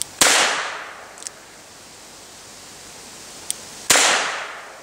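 Two pistol shots from an Iver Johnson Safety Automatic top-break revolver in .38 S&W, fired about four seconds apart, each echoing away over about a second. A faint click comes shortly before the second shot.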